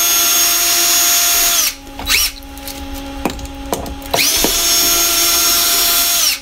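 Cordless drill backing screws out of a window-shade mounting bracket: the motor whines at a steady pitch for about two seconds, stops, gives one short spin, then runs again for about two seconds before winding down near the end.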